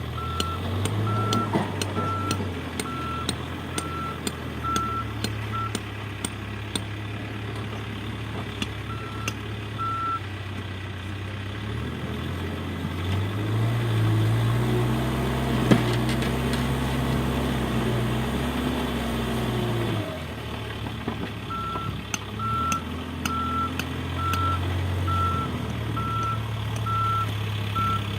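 Heavy construction machine's diesel engine running, with its reversing alarm giving steady short beeps at the start and again near the end. In the middle the engine works harder and louder, with one sharp knock.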